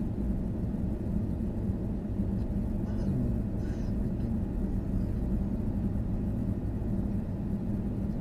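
Van engine running, a steady low rumble.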